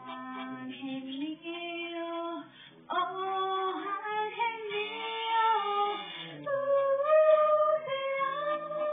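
A young woman singing into a corded microphone, holding long notes that slide and step between pitches, with a brief break about three seconds in and a long wavering note near the end.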